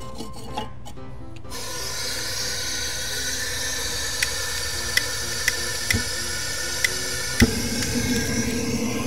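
A fire-starter cube and lump charcoal catch alight in a kamado grill: a steady hiss starts about a second and a half in, with sharp crackling pops here and there. Guitar music plays underneath.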